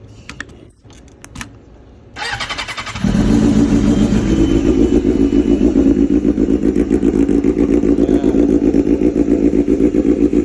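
Motorcycle with a freshly fitted cheap eBay SC exhaust being started for the first time: a few light clicks, the electric starter cranks for about a second, then the engine catches about three seconds in and idles loud and steady, with an even pulsing beat through the new exhaust.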